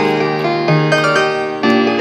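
Background piano music, with new notes struck about every half second.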